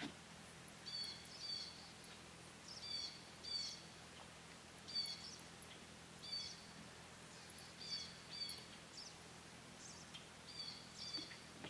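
A bird calling repeatedly in short, high notes, mostly in pairs, every second or two, over faint outdoor background noise.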